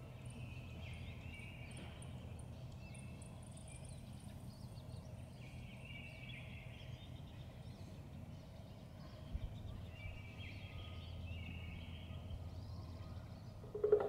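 Quiet woodland ambience: faint songs of small birds in short phrases recurring every few seconds, over a low steady rumble, with a single soft thump about nine seconds in.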